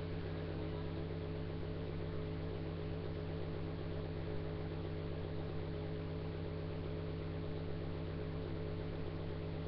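A steady low buzzing hum that holds the same pitch and level throughout, with no clear sound of the hair being handled.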